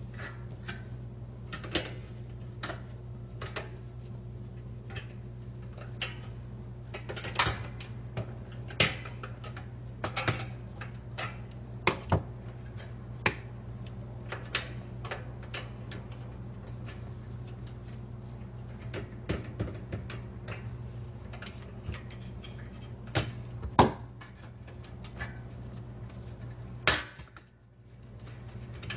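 Irregular sharp clicks and small snaps of the metal clips around the edge of a microwave door's metal mesh plate being bent outward to free the plate, over a steady low hum.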